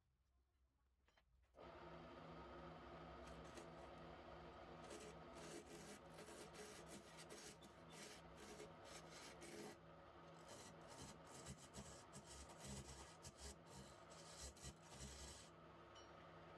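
Wood lathe running with a steady hum while a turning tool scrapes and cuts the spinning wood, with many short scratchy catches; it comes in suddenly about a second and a half in.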